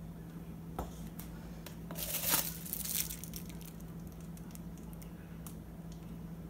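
Paper and plastic cups handled on a countertop: a click about a second in, then about a second of crinkling rustle, then a few light ticks. A steady low hum runs underneath.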